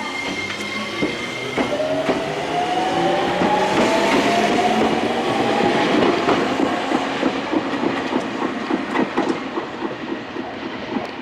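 Nankai Koya Line electric train passing close by, its wheels clacking over rail joints under a steady running roar, with a whine that slowly rises in pitch over the first half.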